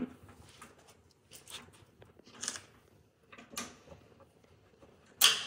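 A few light clicks and clunks of small motorcycle fairing parts and hardware being handled and fitted, then a sharp, louder clack near the end.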